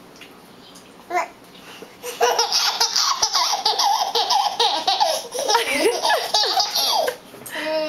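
Toddler laughing hard: high, bubbling belly laughter in quick bursts, starting about two seconds in and lasting about five seconds.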